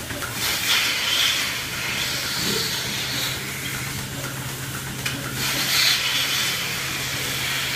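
Vacuum milking equipment in a milking parlor: a steady low hum, with rushes of hissing air from the milking units twice.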